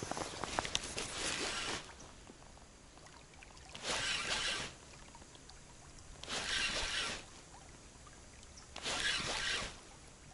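Slow footsteps, heard as a rustling swish each time a foot goes down, four of them about two and a half seconds apart, after some scattered clicks and rustling in the first couple of seconds.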